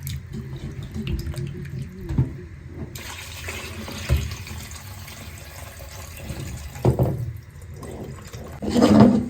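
Kitchen tap running into a sink as cut potatoes are rinsed to wash off their starch, the water coming on strongly about three seconds in. A few knocks and clatters against the sink, the loudest near the end.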